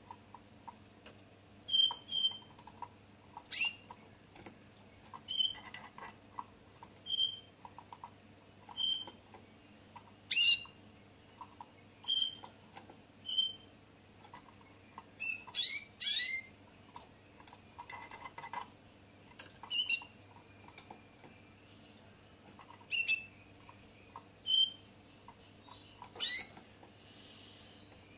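A small caged finch giving short chirps, one every second or two, with a few longer sweeping notes among them, and light knocks and wing flutters as it hops between perches.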